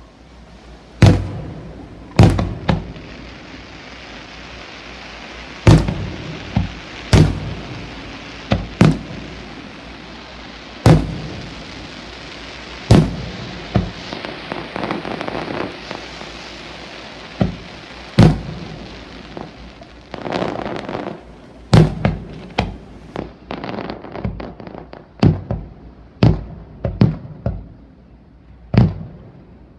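Aerial fireworks shells bursting overhead with sharp, loud bangs, a steady hiss between them. The bangs come a few seconds apart at first, then in a quicker run near the end.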